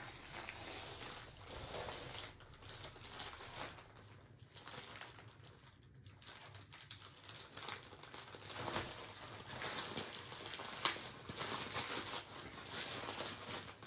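A mailer bag crinkling and rustling as it is handled and opened, in irregular bursts that grow louder in the second half.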